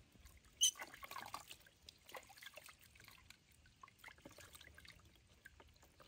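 Water dribbled from a cupped hand over a baby monkey in a plastic tub, with faint trickling and small splashes on and off. One louder, sharp, brief sound comes about two-thirds of a second in.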